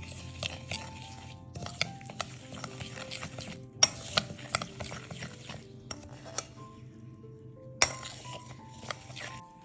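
A kitchen utensil stirring and scraping in a bowl, in several bouts with short pauses and a few sharp clinks, over soft background music.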